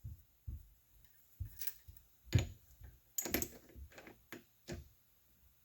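Irregular clicks and light knocks of small tools and metal parts being handled on a workbench, with a sharper knock about two and a half seconds in and a quick cluster of clicks soon after.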